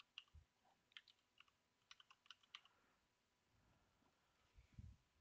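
Faint typing on a computer keyboard, keystrokes coming in quick runs that stop about two and a half seconds in, followed near the end by a few soft low thumps.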